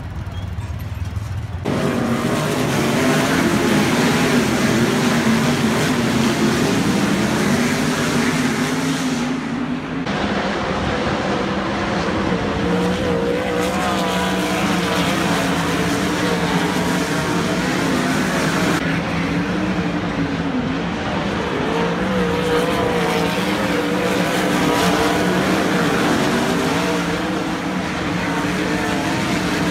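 Winged sprint cars racing on a dirt oval, their V8 engines running hard at high revs. After a quieter first two seconds the engine noise comes in suddenly, and its pitch and mix change abruptly twice more.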